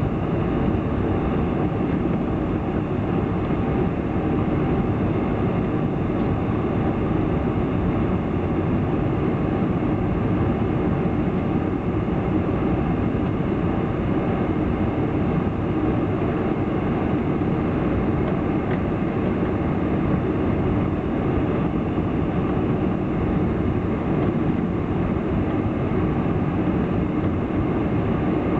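Steady rumble of a Boeing 747's engines and cabin air heard inside the passenger cabin as the airliner taxis, with a few faint steady tones over the low noise.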